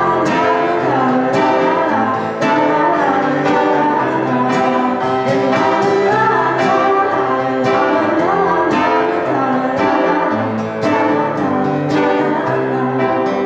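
A woman singing a song, accompanied by a grand piano and a strummed acoustic guitar.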